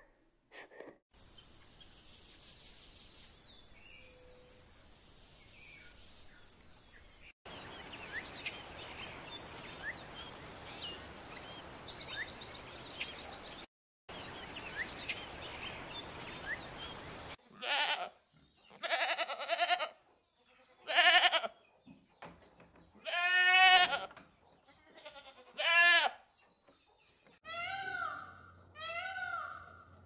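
A run of separate animal recordings. First a high, steady shrill drone, then outdoor background with scattered short bird chirps. Then five loud bleats, some with a wavering pitch. Near the end a green peafowl calls twice, a rising-then-falling cry repeated about every second and a half.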